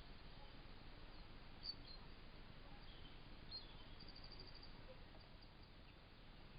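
Near-silent woodland with a steady faint hiss and a few distant, high bird chirps, including a quick run of repeated notes about four seconds in.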